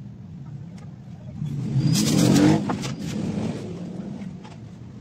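A motor vehicle's engine rumbling low and steadily, swelling into a loud noisy pass about two seconds in and then fading back.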